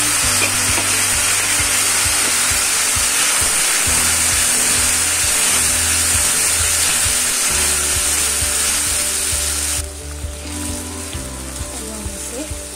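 Chopped tomatoes sizzling loudly in hot oil with onion, garlic and spices, stirred in the pan with a steel spoon. The hiss drops off suddenly about ten seconds in.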